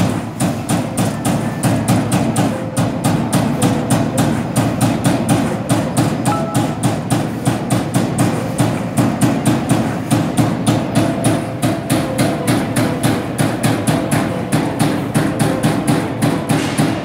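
Servo-driven CNC turret punch press punching holes in a metal sheet: rapid, evenly spaced hits at about four a second, over a steady low background din.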